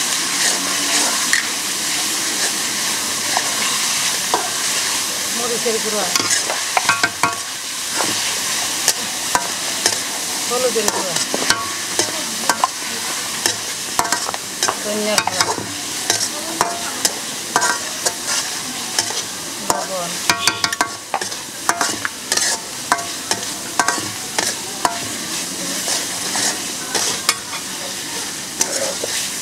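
Onion and spice pastes sizzling in hot oil in a metal karai, stirred with a metal spatula that scrapes and clicks against the pan over and over.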